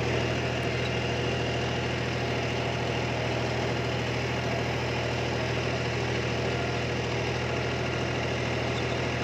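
John Deere 5105 tractor's three-cylinder diesel engine running steadily at about 1,600 rpm, loaded by a rotavator on the PTO. It holds its revs with only a small drop, about 60–70 rpm.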